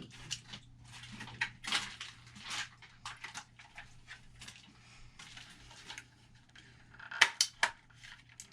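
Clattering and rustling of objects being handled and moved about, with a few sharp knocks about seven seconds in, over a steady low hum.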